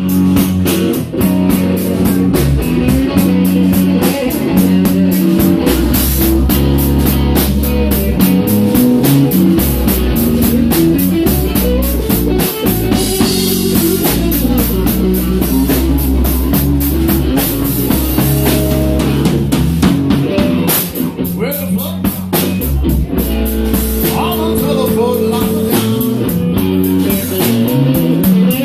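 Live amplified blues-rock trio, with electric guitar, electric bass guitar and a drum kit, playing a slow blues.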